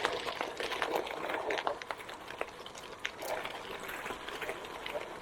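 Gravel crunching: many small, irregular clicks over a soft hiss.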